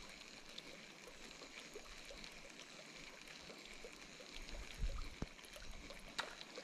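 Quiet riverside ambience: faint water sounds with scattered small ticks, and a brief low bump between four and five seconds in.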